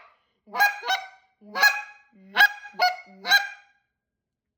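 Goose call blown in six short honking clucks, several breaking from a low note up to a high one.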